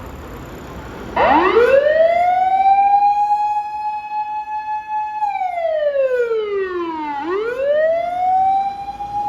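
Fire engine's motor siren winding up about a second in and holding a steady wail. It winds down and then winds up again near the end, over a low traffic rumble.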